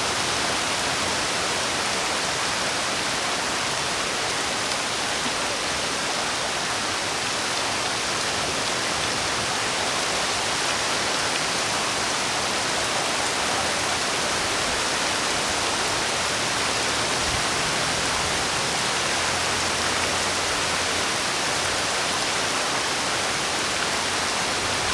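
Steady heavy rain, an even dense hiss with no single drops standing out.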